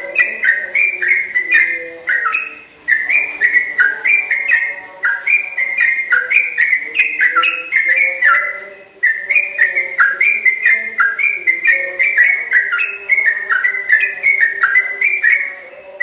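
Caged trucukan (yellow-vented bulbul) singing a long, unbroken run of quick whistled phrases, several notes a second, each note dropping in pitch. The song breaks off briefly about three seconds in and again about nine seconds in, then carries on.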